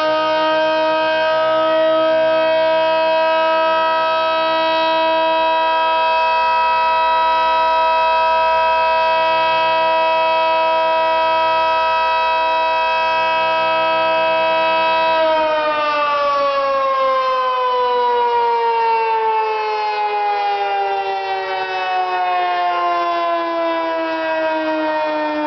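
Federal Signal 3T22 dual-tone electromechanical siren sounding a loud, steady multi-note wail. About fifteen seconds in it starts winding down, its pitch falling slowly as the rotors coast down.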